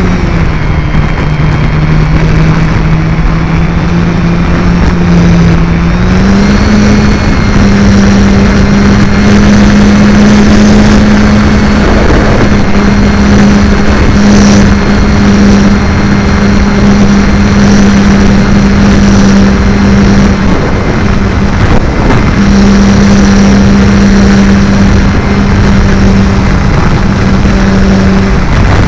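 Electric motor and propeller of a Multiplex FunCub RC plane, heard from a camera mounted on the plane over loud wind rush. The motor's steady drone steps up in pitch about six seconds in and drops out briefly twice in the second half.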